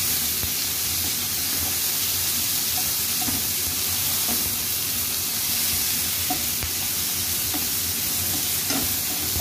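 Sliced garlic, onion and tomato sizzling steadily in hot oil in a frying pan, being sautéed and stirred with a spatula.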